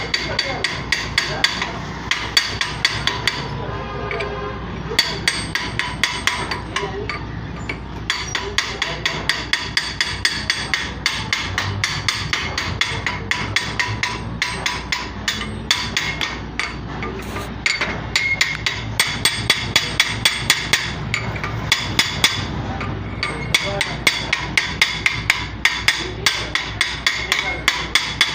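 Hammer striking steel in a fast, steady run of blows, about three a second, each one ringing. The run stops briefly a few times.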